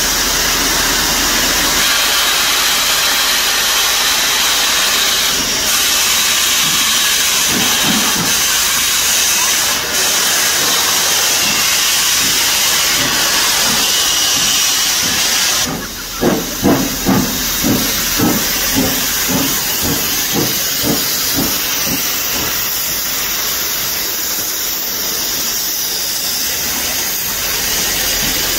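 Steam locomotive letting off a loud, steady hiss of steam, which cuts off suddenly about 16 seconds in. A run of rhythmic exhaust chuffs follows, about two a second, growing fainter toward the end.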